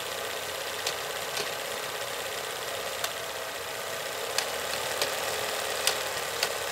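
Film projector running: a steady whirring hiss with about seven sharp clicks and pops at uneven intervals.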